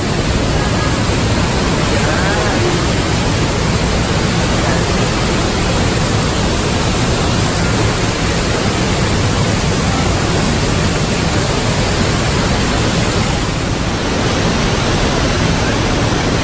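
Waterfall heard up close: a loud, steady rush of falling water.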